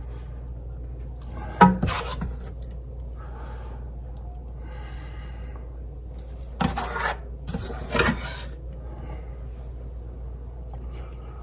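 A utensil clinking and scraping against a dish while meat sauce is spooned and spread over a lasagna layer. There is a sharp clink about a second and a half in, then two short bouts of scraping a few seconds later.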